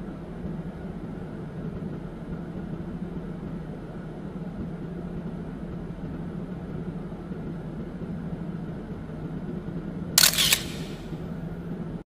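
Steady road and engine drone inside a moving car's cabin, with a short sharp clatter of clicks about ten seconds in.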